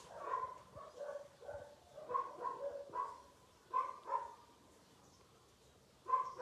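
Dogs barking in short runs of quick barks, stopping for a couple of seconds before starting again near the end.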